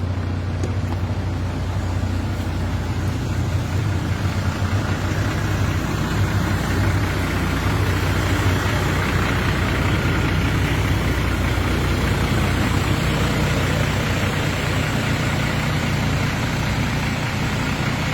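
Vehicle engine running steadily with road noise: a continuous low hum over a loud hiss, swelling slightly in the middle. No telolet horn sounds.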